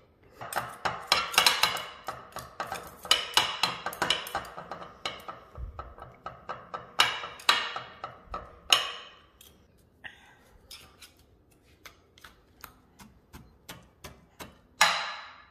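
A metal utensil tapping, clinking and scraping against a dish in quick, irregular strokes, thinning out to occasional light ticks after about ten seconds.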